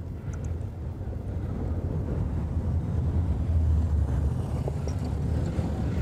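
A car driving slowly close by on a cobblestone street: a low, steady rumble that grows louder toward the middle and stays up to the end.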